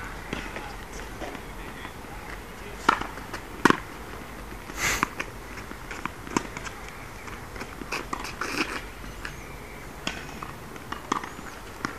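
Tennis rally: a scattering of sharp knocks from a racket striking the ball and the ball bouncing on a hard court, a second or more apart.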